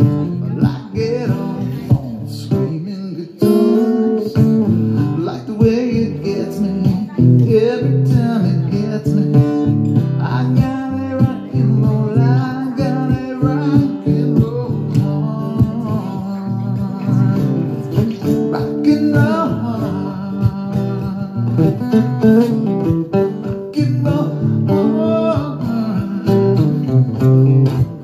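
A man singing while playing a Martin acoustic guitar, as a solo live performance.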